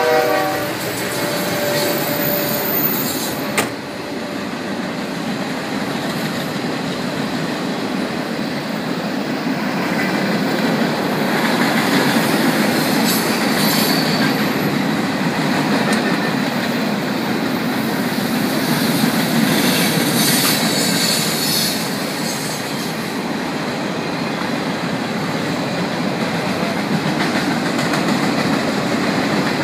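Freight train cars rolling past steadily, wheels on the rails making a continuous rumble. There is a sharp clank a few seconds in and brief bouts of high wheel squeal about midway and again about two-thirds of the way through.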